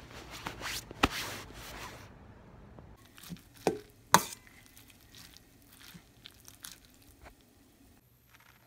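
Rustling and handling of a padded jacket's fabric, then sharp clinks of a spoon against a metal bowl, with soft eating and handling sounds that fade near the end.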